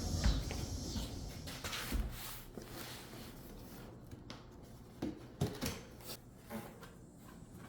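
A box being unpacked by hand: rustling in the first couple of seconds, fading, then a few soft, separate knocks as items are handled and set down.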